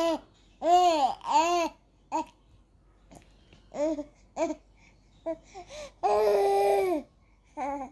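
Young baby cooing and babbling: a string of short vowel sounds that rise and fall in pitch, with one longer held coo about six seconds in.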